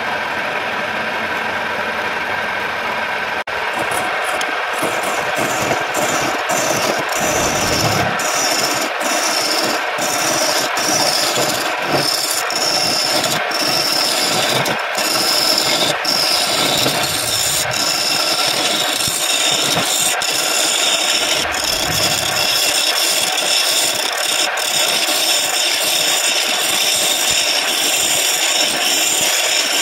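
Wood lathe running steadily while the spinning wood is worked, with a light tick about once a second.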